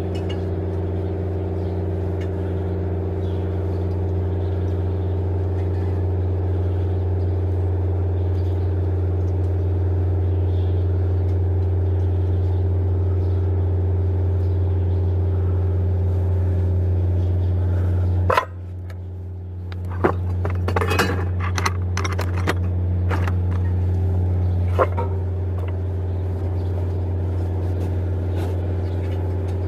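Mercedes-Benz Actros 4040 truck's diesel engine idling steadily. About two-thirds of the way through, its note dips briefly and a handful of sharp metallic clicks and knocks follow over a few seconds.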